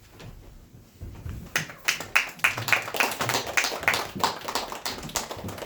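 Audience clapping: a burst of distinct hand claps from a small crowd that starts about a second and a half in and dies away near the end.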